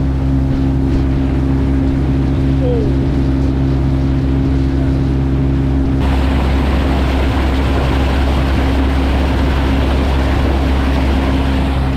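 Motorboat engine running steadily under way, with a rush of wind and water noise that comes in about halfway through.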